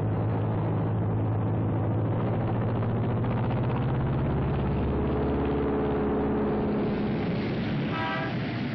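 Twin-engine propeller plane's piston engines running in a steady drone as the plane rolls along the runway, a higher engine tone joining about halfway through. A brief pitched sound comes near the end.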